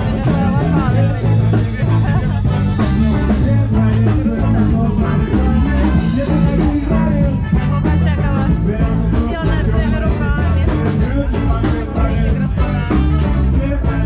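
Live band playing an upbeat ska-style song over a loud PA, with singing over bass, drums and a steady beat.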